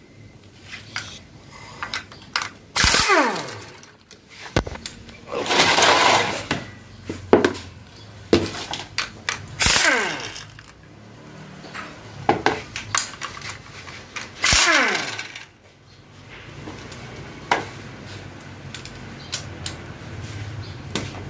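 A power tool runs in about four short bursts of a second or so, each winding down with a falling pitch, as bolts and fittings are loosened off a Honda Civic FD automatic transmission. Sharp metal clicks and clinks of tools and parts fall between the bursts.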